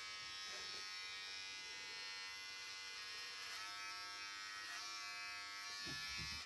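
Electric hair clippers running with a steady buzz as they trim short hair at the back of the head and neck, cutting off abruptly at the very end.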